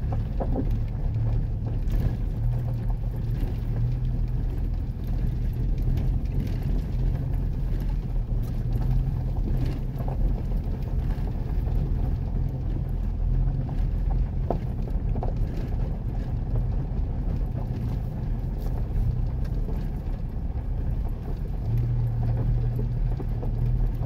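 Vehicle driving along a rough gravel dirt track, heard from inside the cab: a steady low engine and road rumble with occasional light knocks and rattles, a little louder near the end.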